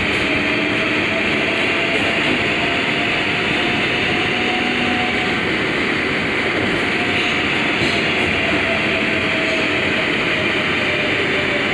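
R142A subway car running along the track, heard from inside the car: a steady rumble and rail noise with faint motor tones.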